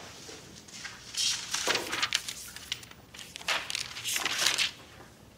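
Sheets of paper rustling as they are handled and leafed through, in a few short bursts.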